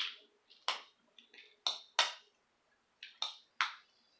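A metal spoon clinking and scraping against a bowl as rice is mixed in it: about six sharp, lightly ringing clicks at uneven intervals.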